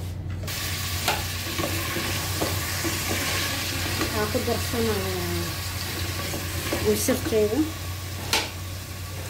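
Chopped onion, carrot, potato and pumpkin sizzling in an open pressure cooker while being stirred with a wooden spoon. The spoon knocks against the pot a few times. The sizzling starts suddenly about half a second in.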